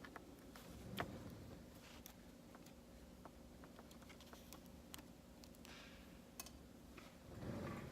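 Faint, scattered small clicks and ticks of a screwdriver and screws being worked out of a laptop's LCD screen mounting, one sharper click about a second in, over a faint steady hum.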